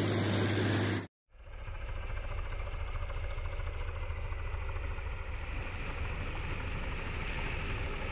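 Muddy water gushing steadily out of the mouth of a large pump delivery pipe, with the Fiat 480 tractor's diesel engine running the pump underneath. The pump has just started lifting water again after a fault was fixed. The sound breaks off for a moment about a second in, then carries on duller and steady.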